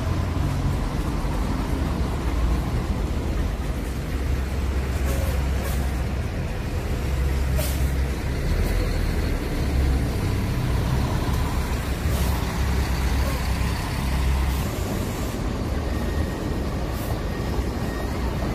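Buses running in the street: a steady, loud, low engine rumble, with a couple of short air-brake hisses partway through.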